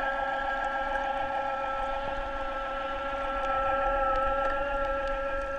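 Handheld underwater scooter's electric motor and propeller running, heard underwater as a steady whine of several held tones.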